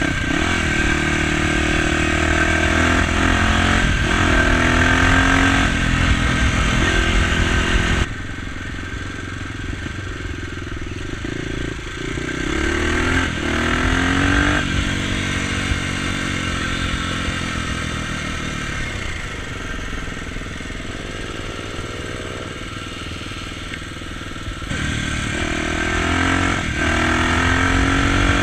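Dirt bike engine heard from on the bike, accelerating through the gears: its pitch rises again and again and drops at each shift. The sound changes suddenly about eight seconds in, going quieter, and again near the end, going louder.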